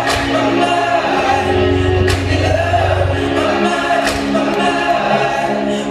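Music with singing voices over held chords, a sharp beat stroke roughly every two seconds, played loud through a party sound system.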